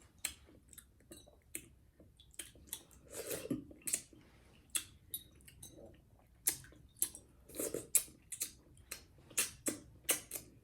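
A person chewing a mouthful of canned collard greens, close to the microphone: irregular smacking mouth clicks about two a second, with a few softer gulping sounds between them.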